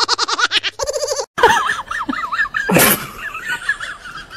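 Music with fast pulsing notes cuts off about a second in. A dog then whines in a high, wavering cry, with one short loud burst near three seconds in.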